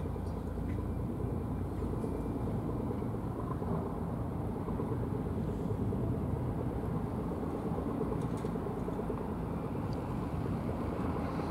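Steady low rumbling outdoor background noise with no distinct events, only a few faint ticks.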